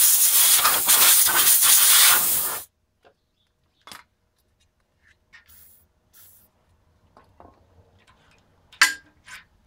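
Compressed-air blow gun blasting for about three seconds, then cutting off sharply, blowing cutting chips off a freshly tapped M10 thread in an aluminum oil pan. A few light metallic clicks and a clink follow near the end.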